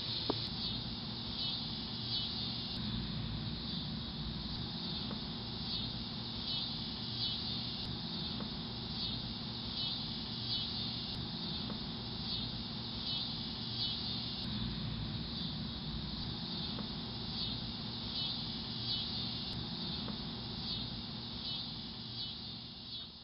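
Garden insects chirping in a steady chorus, a high shrill band that pulses in a regular rhythm, over a low background rumble; it fades out near the end.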